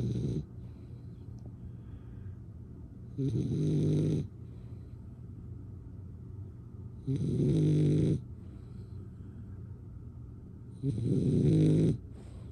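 Slow, regular snoring: loud, rattling snores about a second long, coming roughly every four seconds, with the tail of one at the very start and three full ones after it, quieter in between over a steady low hum.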